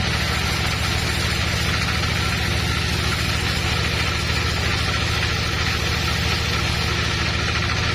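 Woodworking machinery running steadily, a low hum with a fast, even throb under a constant hiss.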